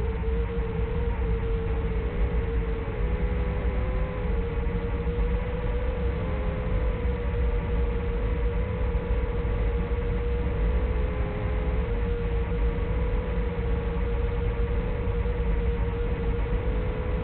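Small FPV drone's motors and propellers whining in flight, a steady tone that wavers and dips slightly every few seconds, over a loud low rumble of wind and hiss.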